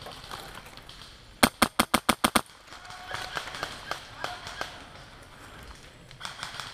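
Airsoft gun firing a rapid burst of about eight sharp shots in a second, about a second and a half in, followed by fainter, more spaced shots from other players further off.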